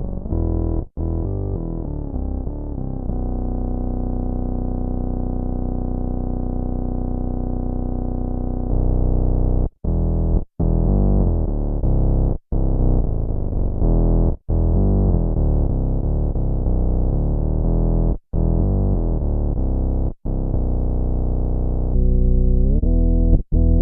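Electric bass played through a Dunlop MXR MB301 Bass Synth pedal: dark synth-bass tones with the top end filtered away. A long held note is followed by a run of shifting notes that stop dead several times between phrases.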